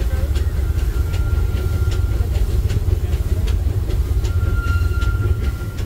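Disneyland Railroad train running, heard from a passenger car: a steady low rumble with the wheels clicking over the rail joints about three times a second. A thin high wheel squeal sounds twice, about a second in and again near the end.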